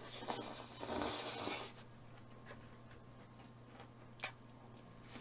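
A person slurping chewy jjolmyeon noodles in one noisy pull of about a second and a half, then quiet eating with a single sharp click about four seconds in.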